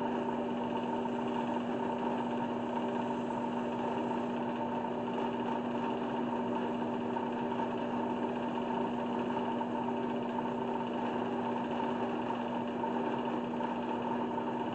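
Wood lathe running at a steady speed, its motor giving a constant hum with a few steady tones, while a rag is held against the spinning black walnut jar to apply the finish.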